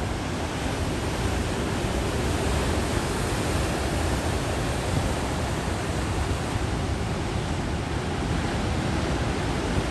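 Steady rushing roar of large ocean surf breaking, an even noise with no let-up.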